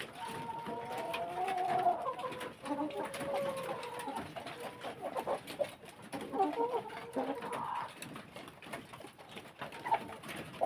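Laying hens clucking and calling, with drawn-out, wavering calls in the first few seconds and again past the middle, over scattered light clicks and knocks.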